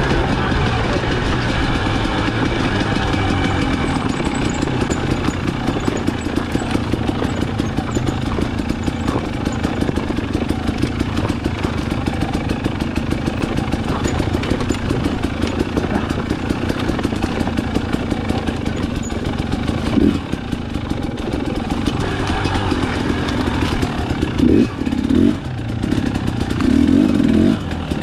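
Single-cylinder two-stroke engine of a 2018 Husqvarna TE250 enduro bike running under way on a trail, with a few brief louder surges of revs in the last third.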